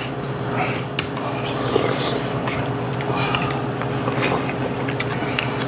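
Eating at the table: spoons clinking against earthenware soup bowls, with slurping and chewing of soup, over a steady low hum.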